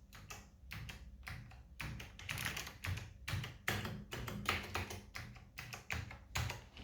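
Typing on a 1988 DMC Focus FK-2001 mechanical keyboard with clicky Alps white switches, a quick run of sharp key clicks that stops just before the end.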